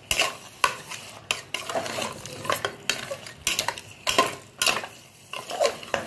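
Metal spatula scraping and knocking against the inside of a pressure cooker as mutton pieces coated in chilli powder and salt are stirred and mixed, in irregular strokes of one to two a second.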